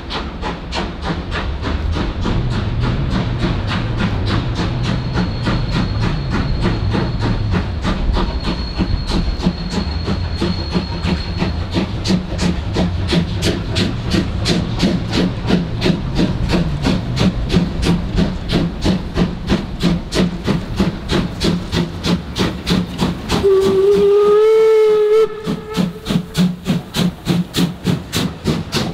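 Class 01 two-cylinder steam locomotive working in with a steady rhythmic exhaust beat and a hiss of steam. A little after two thirds of the way through it gives one steam whistle blast of about two seconds, rising slightly in pitch and the loudest sound here. Then the exhaust beats go on, pulsing plainly as the engine passes close by.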